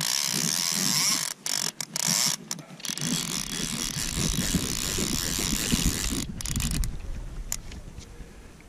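Fly reel's click-and-pawl ratchet buzzing in quick runs that stop and start several times over the first three seconds, then fading out, as a hooked salmon kelt is played on the line.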